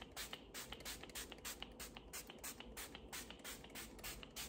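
Fine-mist pump bottle of makeup setting spray pumped rapidly, giving quick, faint hissing puffs about five times a second.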